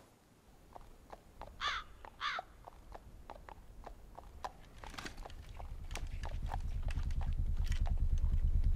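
A horse's hooves clopping at a slow walk on a paved street, with two bird calls about two seconds in. From about halfway, the low beating of a helicopter's rotor fades in and grows steadily louder.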